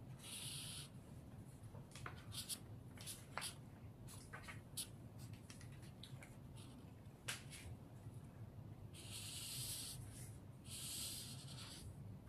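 Felt-tip marker drawing on paper: faint scratchy strokes and small taps, with a few longer drawn lines near the start and in the last few seconds.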